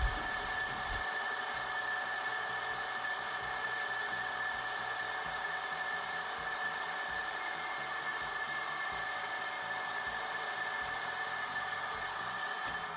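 Drill press running steadily with a constant whine, its bit boring into the wooden comb piece of a shotgun stock.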